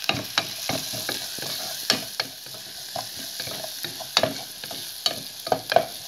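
Wooden spoon stirring garlic, onion and bell pepper frying in oil in an aluminium pot: a steady sizzle with many irregular knocks and scrapes of the spoon against the pot.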